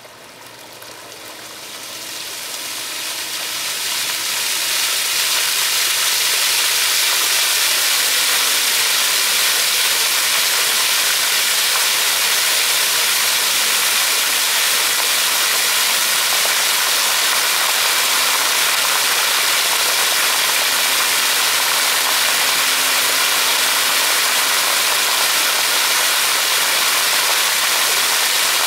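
Splash-pad fountain jets coming on, a hiss of spraying and splashing water that builds over the first five seconds or so and then runs steady.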